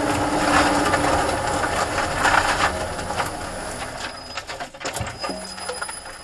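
Renault ZOE R240 electric drivetrain rattling while the car coasts with the motor neither pulling nor braking, which the owner takes for a rattle from the reduction gear. The rattle is loudest at first and fades over the last few seconds.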